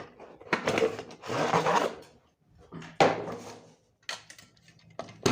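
Plastic parts of a ring-light tripod stand being handled and opened out: scraping and rustling, then a sharp clack about three seconds in and a few smaller clicks.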